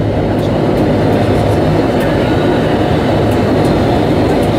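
Steady cabin drone of a de Havilland Canada Dash 8-300's Pratt & Whitney Canada PW123 turboprop engines as the aircraft taxis to its gate, heard from inside the cabin beside the wing.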